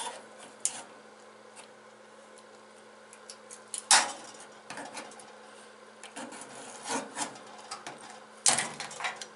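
Rubbing and scraping as stickers are worked off a metal tool box, with scattered clicks and a few sharp knocks, the loudest about four seconds in and another near the end.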